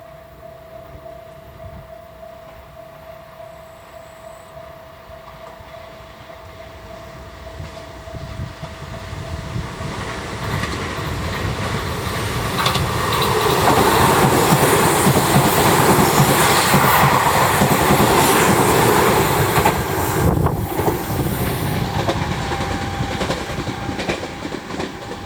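Station level crossing alarm ringing a steady tone, soon drowned out as a Meitetsu 2200 series electric limited-express train passes through at speed. The train grows louder from about a third of the way in, is loudest past the middle, and then eases off.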